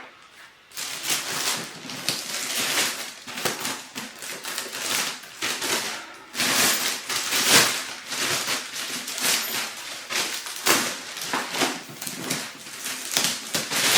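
Packaging and a folded bag rustling and crinkling as they are handled and unpacked, a busy uneven crackle that starts about a second in.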